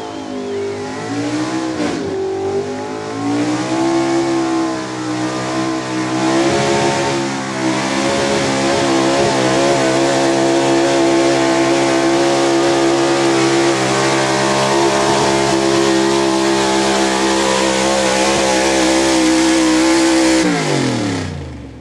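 Chevrolet pickup truck's engine at full throttle pulling a weighted sled. It revs up unevenly over the first few seconds, holds a steady high pitch for about twelve seconds, then drops away sharply near the end as the throttle is let off.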